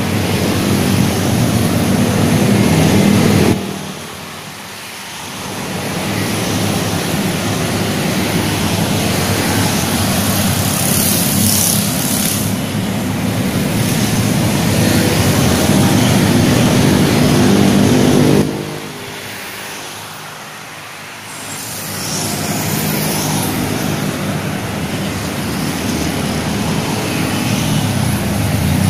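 Road traffic from motorcycles and cars on the adjacent street, a steady din that drops away suddenly about three seconds in and again about eighteen seconds in, each time building back over a couple of seconds.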